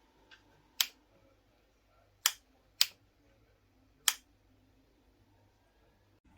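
Four sharp, short clicks at uneven intervals, with a fainter click just before the first, against a quiet background.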